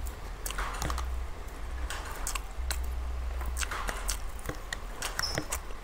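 Close-miked eating of spicy ramen noodles: irregular chewing and wet mouth sounds, with short sharp clicks of a metal fork against a plastic container.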